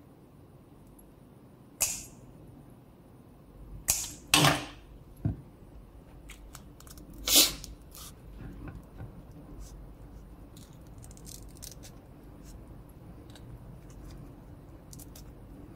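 Banana leaf rustling and crinkling as it is handled and folded around fish for cooking: a few short, sharp swishes in the first half, then faint light clicks and rustles.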